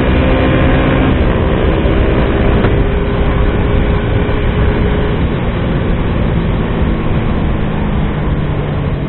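Suzuki sport motorcycle riding at road speed: steady wind rush over the microphone with the engine's note running underneath. The engine pitch slowly falls through the second half as the bike eases off.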